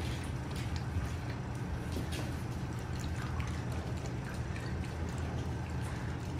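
Scattered light clicks and taps from saluki puppies over a steady low hum.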